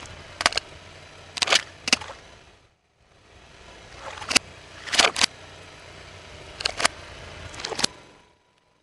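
Water balloons bursting one after another under a slowly rolling car tyre: sharp pops with splashes of water over the low rumble of the car. The pops come in two runs, split by a brief cut to silence about three seconds in.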